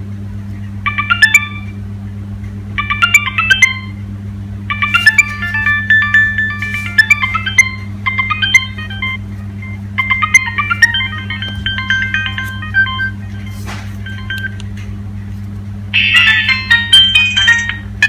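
Nokia 3530 mobile phone playing its built-in ringtones through its small speaker: short electronic melodies one after another with brief pauses between them. The last one, starting near the end, is louder and brighter. A steady low hum runs underneath.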